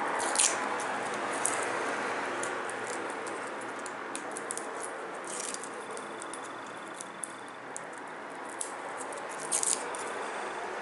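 Dry garlic skins crackling and rustling as cloves are peeled by hand, in scattered small clicks over a steady hiss.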